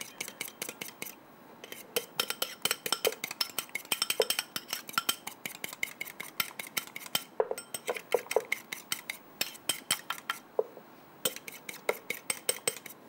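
A fork beating a raw egg in a small bowl: quick, rapid clinks of the fork against the bowl, pausing briefly a few times.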